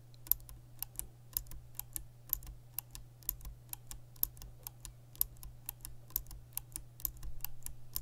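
Cherry MX Green and Gateron Green clicky mechanical keyboard switches pressed one after another, giving sharp clicks about three a second.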